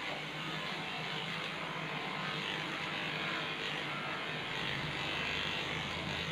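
Electric pet hair clippers running with a steady buzz as they are drawn through a dog's body coat.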